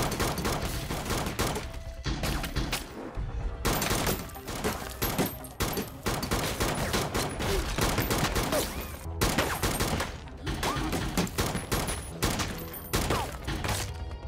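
Rapid, sustained pistol gunfire in a film shootout: many shots in quick succession, broken by a few brief pauses.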